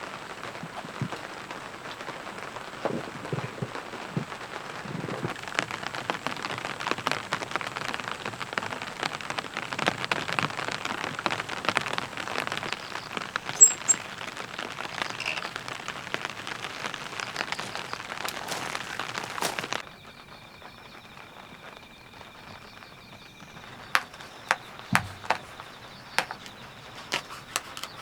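Heavy rain pattering steadily, full of sharp individual drop ticks, which cuts off abruptly about two-thirds of the way through. A quieter stretch follows, with a faint steady high tone and a few sharp taps.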